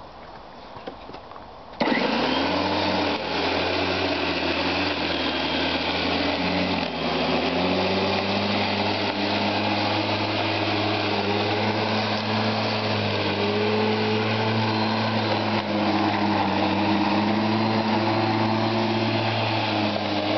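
Einhell corded electric lawnmower starting suddenly about two seconds in and then running steadily as it is pushed over the grass: a motor hum and whine with a slight shift in pitch as the blade takes the load.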